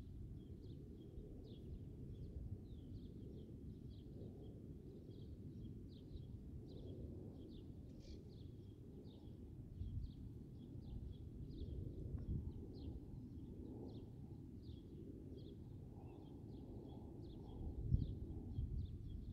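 Quiet outdoor ambience: a low rumble, with a brief low bump near the end, under a steady series of short, high, downward-sliding chirps, about two or three a second.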